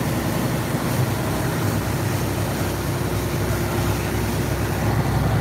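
Dive boat running at speed: a steady engine drone under the rush of water and spray along the hull.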